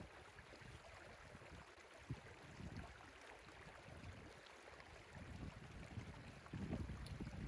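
Water rushing steadily through a breach in a beaver dam, with low wind buffeting on the microphone swelling near the end.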